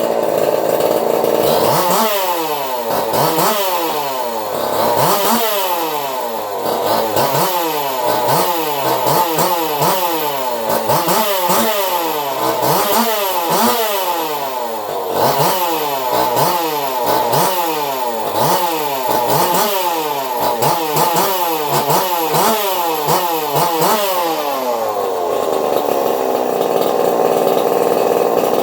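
Custom-built small engine with a swapped crank and piston, running on a test bench. Its speed sags and picks back up over and over, roughly once a second, for most of the stretch, then settles back to steady fast running near the end.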